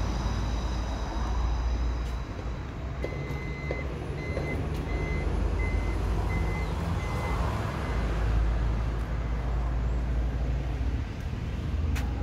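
A string of short high electronic beeps, about two a second, starting about three seconds in, over a steady low rumble. These are the warning beeps of a Toyota Sienta's power sliding door in motion.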